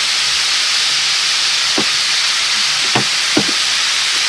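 Shredded banana heart sizzling steadily in oil in a pan after soy sauce has gone in. Three short, sharp sounds stand out from the hiss in the second half.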